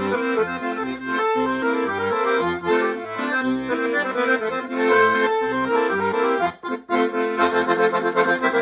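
Excelsiola piano accordion playing a tune: a treble melody on the keyboard over a steady run of bass notes. After a brief break near the end it moves into fast repeated chords.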